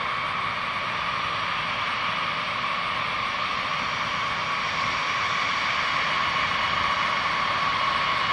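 Jet engines of taxiing B-52H Stratofortress bombers, each with eight Pratt & Whitney TF33 turbofans: a steady high whine over a low rumble, slowly growing louder as the lead bomber approaches.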